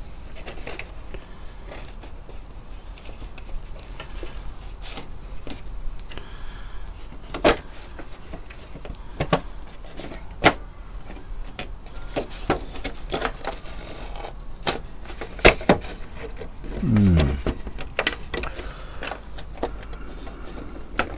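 Irregular small metallic clicks and knocks of pliers working on the metal dial-drive parts of a valve radio chassis, with a few sharper knocks scattered through.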